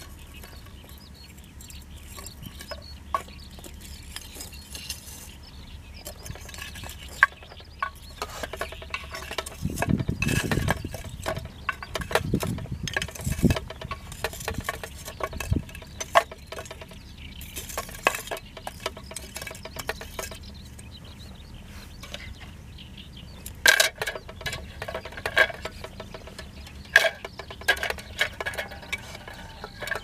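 Metal tongs clinking and scraping against lumps of charcoal and the clay walls of a shichirin as lit charcoal is picked out and moved onto the lid of a cast-iron Dutch oven for top heat. The sharp clinks come in scattered groups, busiest late on, with a low rumble around the middle.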